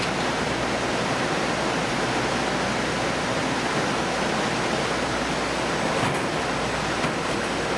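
Steady rushing of running water, even and unbroken, with a few faint clicks near the end.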